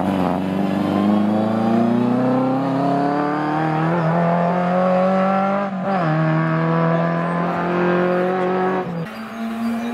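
Lancia Fulvia Coupé rally car's V4 engine accelerating hard out of a hairpin, its pitch climbing through the gears with a drop at an upshift about six seconds in. The engine sound falls away about nine seconds in.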